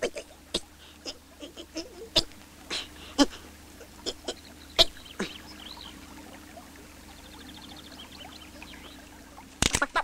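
Cartoon sound effects: a scatter of sharp clicks and taps mixed with short chirping whistles, a quick run of fast ticks about seven seconds in, and a loud clatter near the end.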